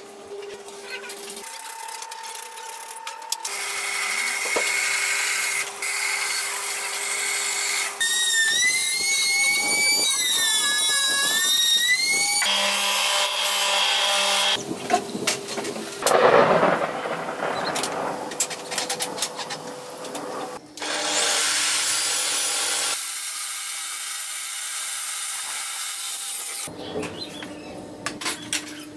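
A string of short workshop sound clips with abrupt cuts between them: power tools cutting and shaping wood. About a third of the way in, a cutting tool whines with a wavering pitch as it works through the wood.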